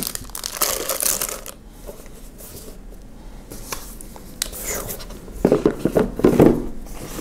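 Cardboard box and paper packaging being handled: rustling, crinkling and scraping, loudest in the first second and a half and again near the end, with small knocks in between.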